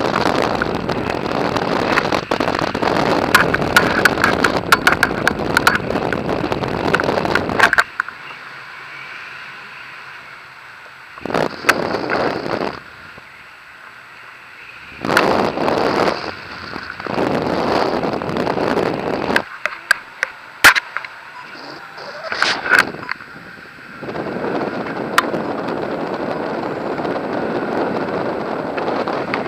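Wind buffeting an action camera's microphone in paraglider flight, coming in gusty stretches of several seconds with crackling pops, easing off in short lulls between them.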